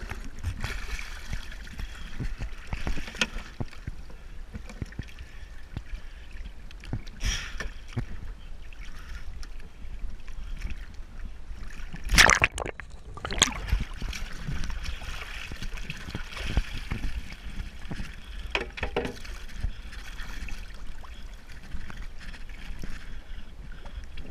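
Seawater sloshing and splashing around a camera held at the surface against a boat's hull, with scattered small knocks; a loud splash or bump about twelve seconds in.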